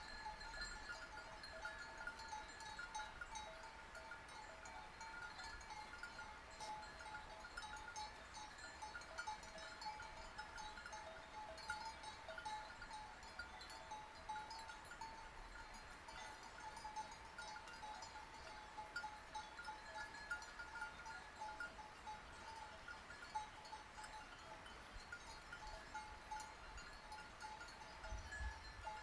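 Sheep bells clanking and tinkling irregularly, several bells at different pitches ringing on and off, as the animals wearing them move.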